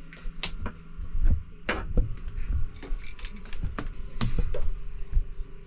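Irregular knocks, clicks and low thumps of a northern pike being handled and unhooked, over a steady low hum.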